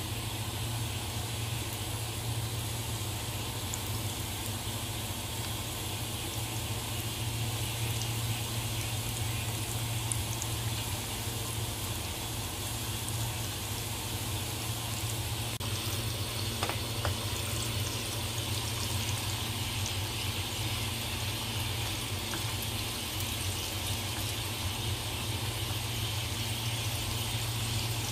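Battered chicken pieces deep-frying in hot oil: a steady bubbling sizzle.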